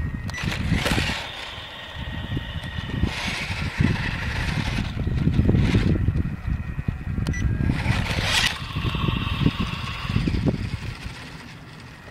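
Small electric drive motor of a gyro-stabilised RC stunt motorcycle whining in three short spurts as it accelerates, reverses and pops wheelies, with its tyres scuffing on asphalt over a low rumble.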